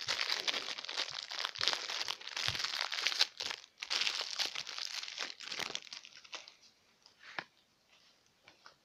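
Plastic wrapper of a Milka chocolate bar crinkling and tearing as it is unwrapped by hand; the crackling stops about six seconds in, leaving a few faint clicks.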